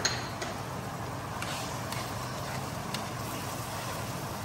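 Steady hiss of a gas hob burner under a frying pan of oil, chopped peppers and spices cooking gently. A sharp click at the start and a few lighter clicks follow, a metal spoon knocking against the pan as it stirs.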